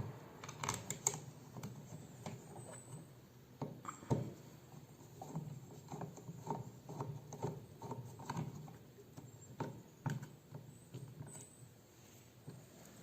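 Outlet cover plate being fitted and screwed on by hand: scattered light clicks, taps and scrapes of plastic and screwdriver, some in a loose run of small ticks in the middle.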